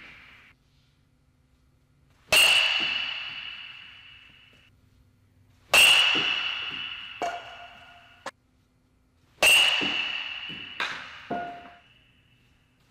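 Metal baseball bat striking balls off a tee three times, each a sharp ping with a ringing tail that fades over about two seconds. A few softer knocks follow the hits.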